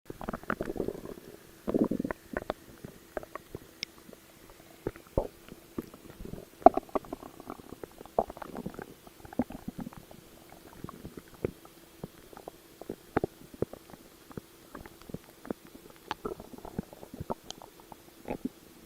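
A stomach gurgling and growling, close up. There are two longer low rumbles in the first two seconds, then a run of many short, irregular gurgles and pops.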